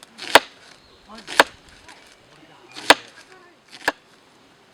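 Four sharp chopping strikes on wood, one blow roughly every second or so.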